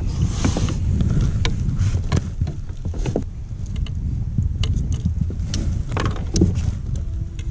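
Scattered clicks and knocks of a landing net and fish-gripping tool being handled on a plastic kayak deck, over a steady low rumble.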